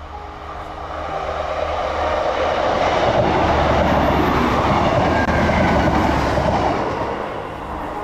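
A train passing by: a steady rush of rolling noise with a low hum underneath that grows louder, is loudest in the middle, and fades toward the end.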